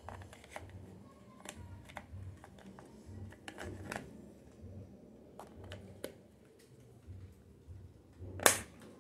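Small plastic clicks and knocks from handling the battery holder and compartment of a Minelab Vanquish 340 metal detector, with one loud sharp snap near the end as the battery cover is closed.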